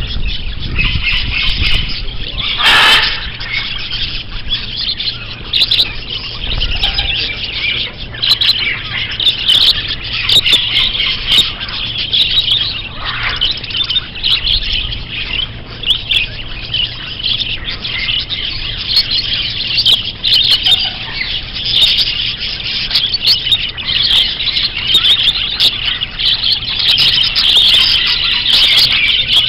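Many small birds chirping and twittering at once in a dense, continuous chorus, with a brief louder burst about three seconds in.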